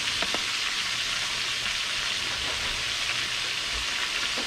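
Breaded venison backstrap pieces deep-frying in a pan of hot oil, a steady even sizzle of bubbling grease with a few faint ticks.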